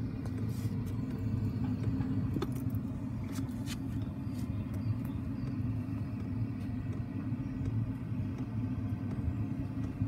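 A 5 kW Chinese diesel air heater, burning a half-and-half mix of diesel and cooking oil, running with a steady low rumble from its burner and fan. A few light clicks come in the first few seconds.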